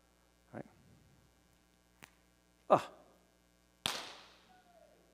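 A single sudden sharp bang near the end, with a brief ringing tail that fades over about a second.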